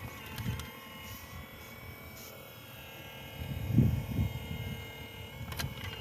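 Electric motors of a radio-controlled model excavator whining steadily as the arm swings. A low thump about four seconds in is the loudest sound.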